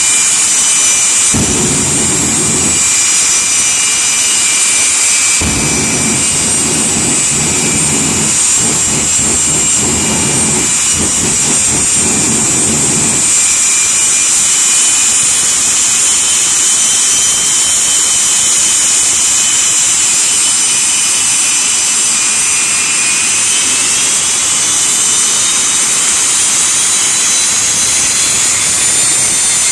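Jet dragsters' turbojet engines running on the start line: a loud, steady high-pitched whine, with one tone climbing in pitch over the last few seconds. A deeper rumble comes in briefly near the start and again for several seconds in the first half.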